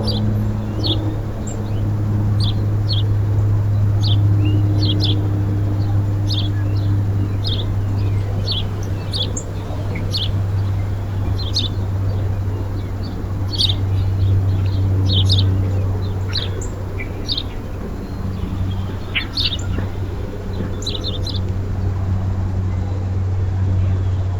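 Small birds giving short, high chirps, about one or two a second, over a steady low hum.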